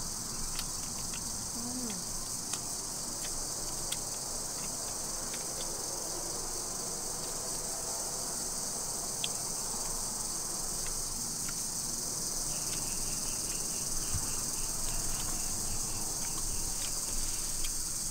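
Steady, high-pitched chorus of insects, with a few faint clicks and a short, rapid trill about two-thirds of the way through.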